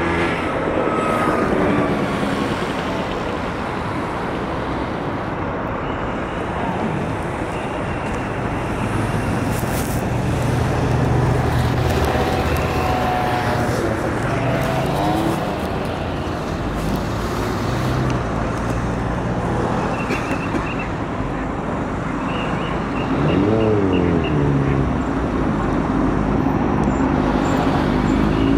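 Steady road traffic: cars and other vehicles passing, their engines rising and falling in pitch as they go by, with one passing vehicle standing out clearly about three-quarters of the way through.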